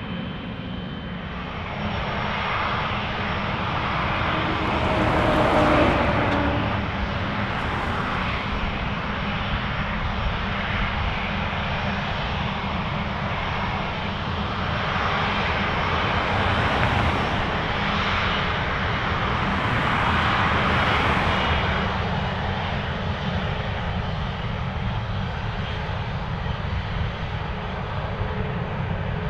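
Widebody twin-jet airliner engines running on departure: a steady jet rumble and hiss that swells about five seconds in and again around the middle.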